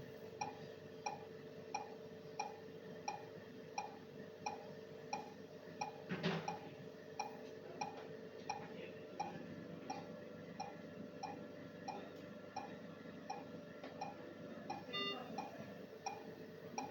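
Mechanical ventilator setup running: a steady hum under short pitched ticks that repeat evenly about one and a half times a second. There is a brief louder burst of noise about six seconds in.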